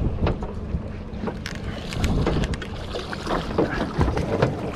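Wind buffeting the microphone over the low rumble of a small fishing boat on the water, with scattered light clicks and knocks.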